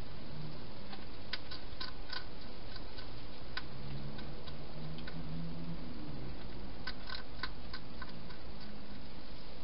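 Wild hedgehog eating from a bowl: sharp, clicky crunches in quick clusters, a bunch about a second in and another about seven seconds in, over a steady hiss.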